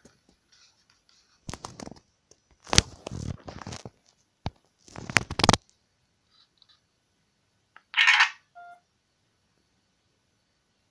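A hand rubbing and fumbling on a Myria Senior MY9018 mobile phone close to the microphone, three clumps of scraping and clicks. About eight seconds in, the phone plays a short hiss-like camera shutter sound, then a brief two-tone beep as it refuses to save the photo for lack of memory.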